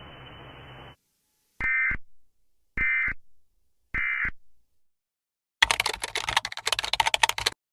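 EAS end-of-message signal: three short buzzy SAME data bursts, about a second apart, marking the end of the alert. Near the end comes about two seconds of loud crackling static.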